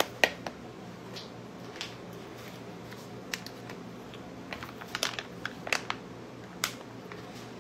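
Scattered light clicks and taps from handling salad ingredients: a metal spoon knocking against a plastic mixing bowl and a plastic squeeze pouch of mayonnaise being handled and squeezed, over a faint low hum.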